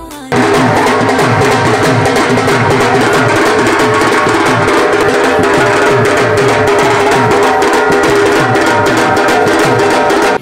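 Loud dance music with a fast, dense drum beat, starting abruptly just after the beginning and cutting off suddenly at the end.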